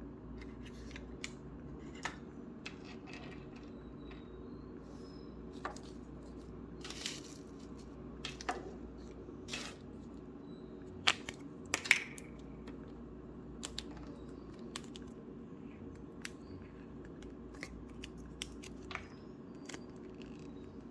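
Hands squishing and stretching Play-Doh feathery slime, making scattered soft clicks and small pops, with a few louder pops about halfway through.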